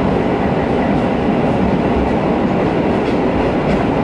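Diesel railcar running at speed through a tunnel, heard from inside the car: a loud, steady rumble of engine and wheels on the rails, with a little clickety-clack.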